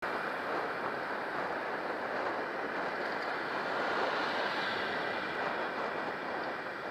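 Steady rushing noise of a bicycle ride along a city road: wind over the bike-mounted camera's microphone mixed with road traffic.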